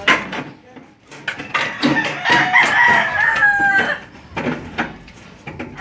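A rooster crows once, a long call of about two seconds that falls slightly in pitch, about two seconds in. Under it are the short crunching clicks of aviation snips cutting painted sheet-metal gutter.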